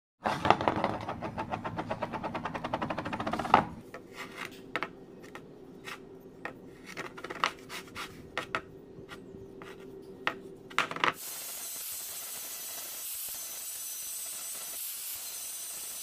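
Metalworking in a workshop: a few seconds of rapid scraping strokes like filing or sawing metal, then scattered light knocks and clicks, then a steady hiss for the last few seconds.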